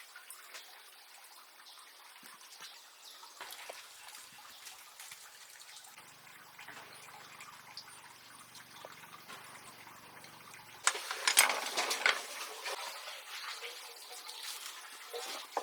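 Water trickling faintly, then a louder rush of splashing water about eleven seconds in that eases off into a steady trickle.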